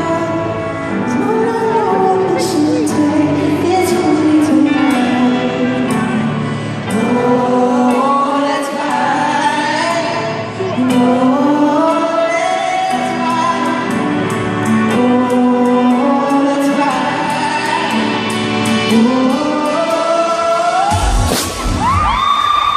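Live pop music heard from the audience in a large arena: a male lead vocal sings a slow melody over sustained synth chords. About 21 seconds in, a rising synth sweep and a heavy bass beat kick in.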